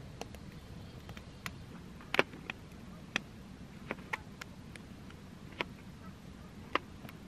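A dozen or so sharp, unevenly spaced clicks and taps over a faint steady low background.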